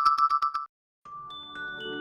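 Cubot X6 phone sound files played back: a rapid electronic beeping, about eight beeps a second, cuts off abruptly under a second in. After a brief silence, the next tone begins with several sustained notes entering one after another.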